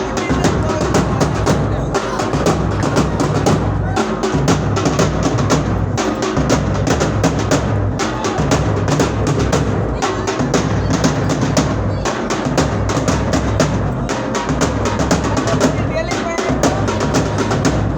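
Drums playing a fast, steady beat, with brief breaks about every two seconds.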